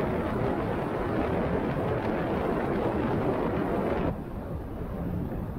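Steady rushing noise of a bicycle ride picked up by a head-mounted action camera: wind over the microphone mixed with tyre and trail noise. It drops abruptly in level about four seconds in.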